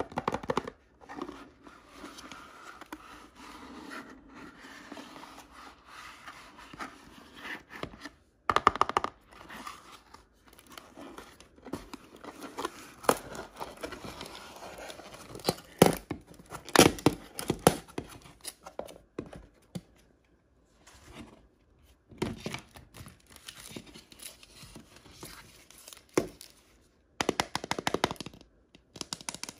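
Packaging of toy blind bags being torn open and crinkled by hand. The crackling runs irregularly, with several louder rips about a third of the way in, in the middle, and near the end.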